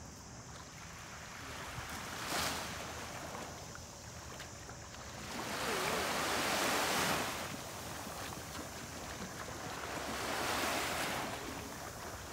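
Small waves breaking and washing up onto a sandy beach, a steady wash that swells roughly every four seconds.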